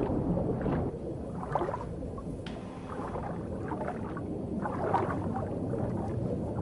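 Low, muffled underwater rumble with a few short, irregular swishes and gurgles.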